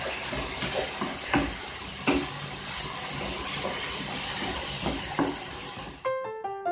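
Okra, bacon and onion sizzling in a non-stick frying pan while a wooden spatula stirs them, with a few knocks and scrapes of the spatula against the pan. About six seconds in the sizzling cuts off and piano music begins.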